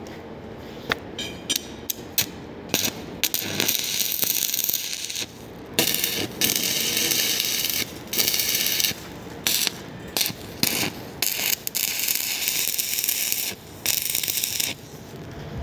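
Stick-welding arc from a 2.5 mm electrode at 110 A, tack-welding a steel pipe to an elbow. The arc is struck with a few short snaps, then burns as a crackling, sizzling hiss in a series of bursts a second or two long, each broken off between tacks.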